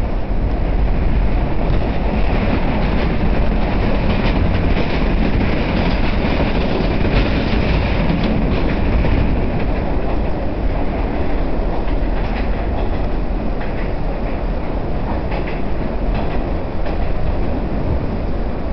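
R68 subway car running at speed through a tunnel, heard from inside the car: a loud, steady rumble of wheels on rail with a scattered clatter over the rail joints.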